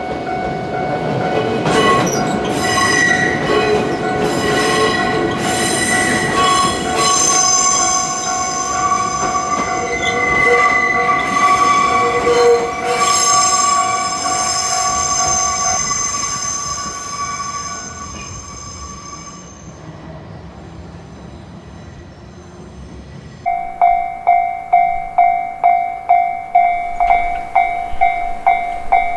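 Nankai Kōya Line train passing over a level crossing, its wheels squealing in several high, steady tones while the crossing alarm sounds. The alarm cuts off a little past the middle and the train noise fades away. Near the end another level crossing's warning bell starts ringing, about two strikes a second.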